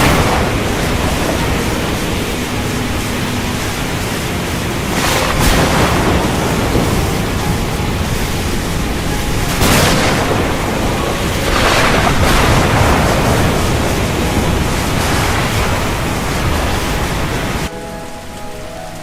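Heavy rain with thunder rolling over it, the thunder swelling loudly several times, about five, ten and twelve seconds in. Near the end it cuts suddenly to softer, steadier rain.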